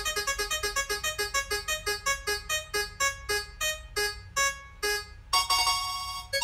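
Spinning-wheel sound effect made of a short piano-like note. It repeats quickly at first, about six times a second, and slows steadily to about two a second, like a prize wheel's ticking as it comes to rest. A longer held chime sounds about five seconds in.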